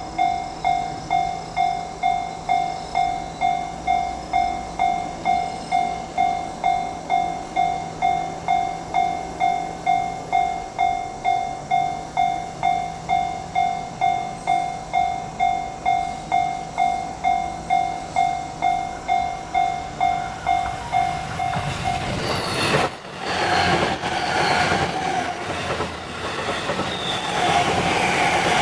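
Japanese railway level-crossing warning bell ringing its repeated electronic clang, about two strikes a second. About 22 seconds in, a train arrives and runs over the crossing, its wheels clattering over the rail joints and its noise covering the bell.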